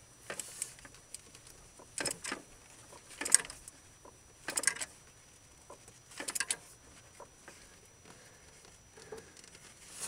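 Short clusters of metallic clicks every second or so from a wrench on a spark plug thread chaser, worked back and forth to clean carbon-clogged plug threads in the cast iron cylinder head, thinning to a few single ticks near the end.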